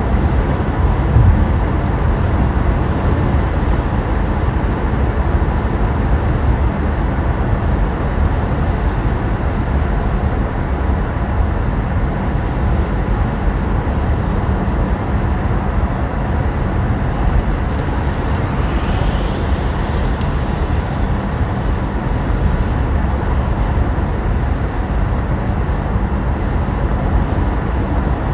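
Cabin noise inside a battery electric car at autobahn speed: steady low tyre rumble and wind rush with no engine sound, and a faint steady high tone.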